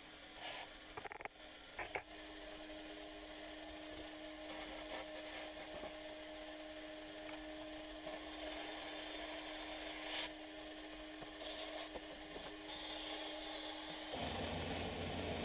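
Hand-pump Waxoyl sprayer working: a few clicks of the pump near the start, then several short hissing spells as the wax rust-proofer is sprayed into the holes of a steel windscreen frame, over a steady low hum.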